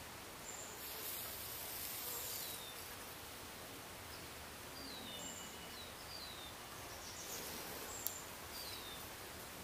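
Faint background with small birds chirping now and then: short, high, falling chirps. A brief high hiss comes about a second in and again near the end.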